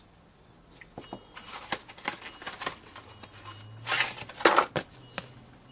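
A paper instruction sheet being handled and unfolded, rustling and crackling several times, loudest about four seconds in.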